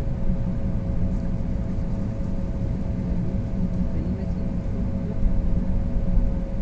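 Steady low rumble of wind buffeting the microphone on an open boat, with a constant faint hum underneath.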